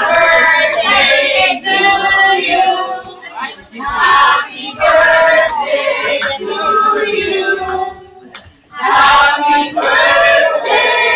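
A group of people singing together, women's voices most prominent, with a brief pause about eight seconds in.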